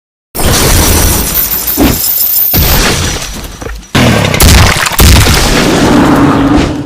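Loud edited sound effects, crashing and booming over music, in several abruptly cut segments that fade out at the end.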